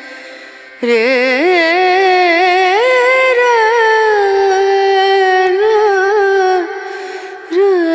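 Background music: a Hindi devotional song. A high voice comes in about a second in and sings a long, drawn-out line with vibrato, breaks off briefly near the end, then picks up again.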